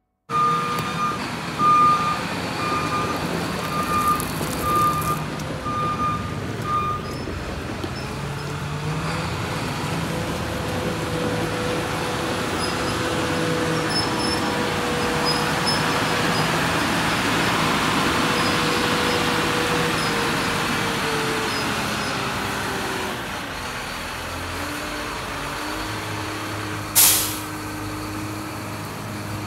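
Hagie self-propelled sprayer's diesel engine running as the machine moves, with its backup alarm beeping about once a second for the first several seconds. The engine note drops about three-quarters of the way through, and a short sharp hiss of released air comes near the end.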